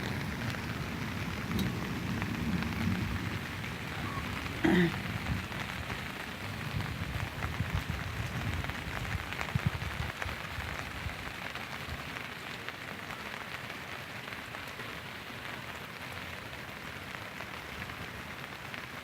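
Steady rain falling, an even hiss, with a low rumble in the first ten seconds or so that then fades. About five seconds in, a single brief pitched squeak stands out above the rain.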